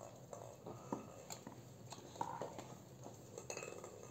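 Quiet handling sounds: a few soft clicks and light rustling as stuffed grape leaves are rolled by hand over a metal tray.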